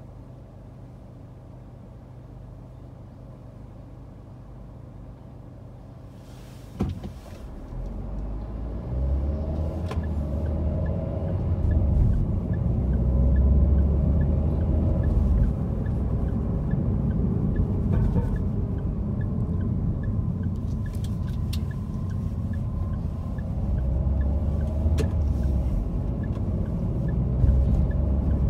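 Inside a car: the engine hums quietly at low revs for the first several seconds, a sharp knock sounds about seven seconds in, and then a louder low rumble of engine and tyre noise builds as the car drives on. A faint regular tick, about one and a half a second, runs through the middle stretch.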